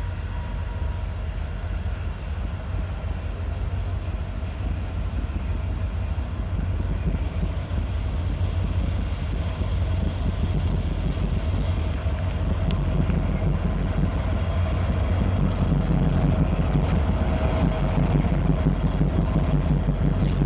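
Freight train with diesel locomotives running past with a steady low rumble, growing gradually louder as it draws nearer.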